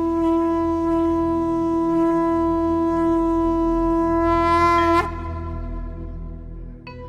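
Conch shell (shankh) blown in one long, loud, steady note that rises slightly in pitch just before it cuts off about five seconds in. A low rumble carries on after it, and a new note begins near the end.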